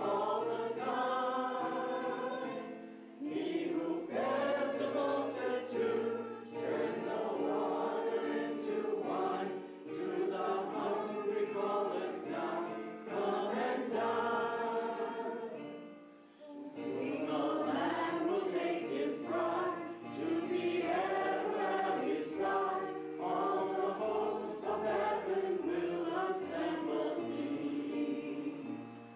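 A group of voices singing a hymn in phrases, with instrumental accompaniment. The singing pauses briefly between lines, longest about halfway through.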